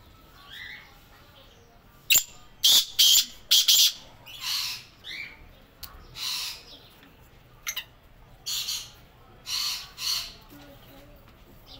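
Black francolin (kala teetar) calling: loud, harsh, grating notes in repeated phrases, starting about two seconds in with a quick run of short sharp notes, followed by longer drawn-out notes.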